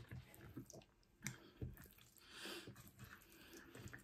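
Faint eating sounds: quiet chewing and mouth clicks, with a few soft clicks of a wooden fork against a plate of curry-covered noodles.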